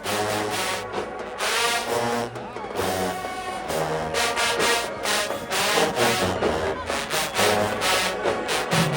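Marching band brass playing a tune, with low brass moving through a bass line under it.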